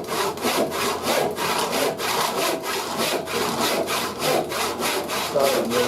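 Hand saw cutting through maple burl in fast, even strokes, about four or five a second.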